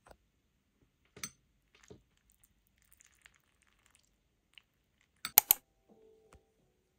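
Metal spoon clinking against a ceramic bowl of food: a couple of light clicks early on, then a quick cluster of three or four louder clinks about five seconds in.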